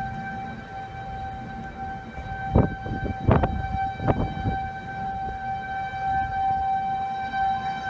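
Outdoor tornado warning siren holding a steady tone, over a low rumble. Several sharp thumps come in quick succession between about two and a half and four and a half seconds in.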